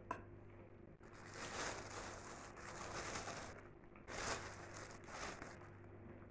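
Close-up chewing of a mouthful of plov (rice pilaf with meat), in two soft stretches. A fork clicks on a ceramic bowl right at the start.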